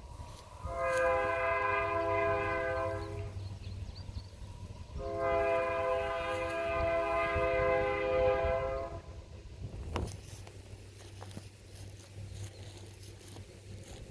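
Distant locomotive air horn of the Kanawha River Railroad's eastbound train 380 sounding two long blasts, the second longer than the first, as the train nears a road crossing.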